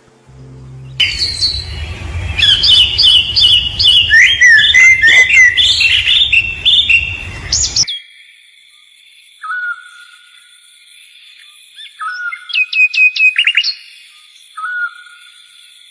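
Songbirds singing: a loud, rapid run of chirps and trills that cuts off suddenly about eight seconds in. After it come quieter short chirps and a quick burst of notes over a steady high tone.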